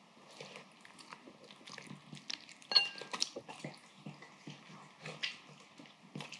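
A papillon dog eating udon noodles and vegetables from a bowl: irregular wet chewing and smacking clicks, with one sharp ringing clink from the ceramic bowl about three seconds in.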